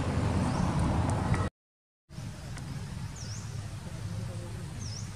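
Outdoor ambience with wind rumbling on the microphone, cut off abruptly to silence about a second and a half in. It then comes back quieter, with two short high bird chirps, one near the middle and one near the end.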